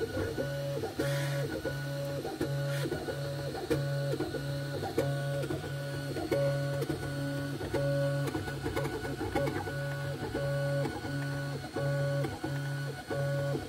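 Snapmaker 3D printer printing, its stepper motors humming in short tones that start and stop in a regular rhythm, about three moves every two seconds, as the print head moves back and forth.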